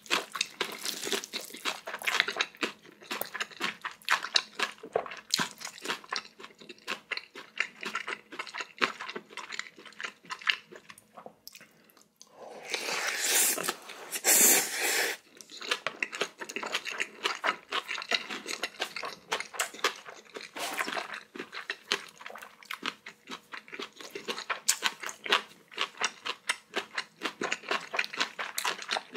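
Close-miked eating sounds of a person chewing spicy bibimbap: rapid wet chewing and mouth clicks, with a short pause about twelve seconds in followed by a louder, noisier stretch of about three seconds.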